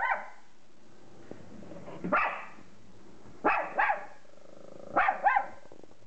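Small terrier-mix dog barking in alarm at a dog being walked past outside: one bark about two seconds in, then two quick pairs of barks.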